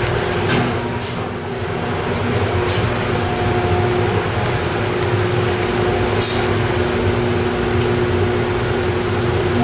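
Steady droning hum of an indoor shooting range's ventilation system, with a few brief sharp hissy ticks at about 1, 3 and 6 seconds in.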